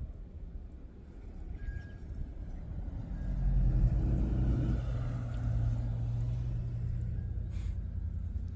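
A car's engine and road rumble, swelling about three seconds in and then holding at a steady low hum.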